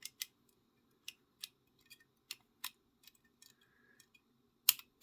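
Pick wire clicking against the steel levers inside a four-lever FB14 Fire Brigade padlock as it is picked under tension from a cut-down lever key. The sharp ticks come irregularly, a few per second, and the loudest come just before the end.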